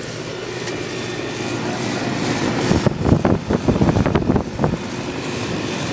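Goodman 2.5-ton straight-cool air conditioner condensing unit running steadily, its fan and compressor making a constant whooshing hum. Wind buffets the microphone in uneven gusts in the middle.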